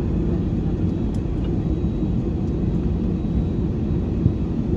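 Steady low rumble inside an Airbus A320-200 passenger cabin, with a single brief click near the end.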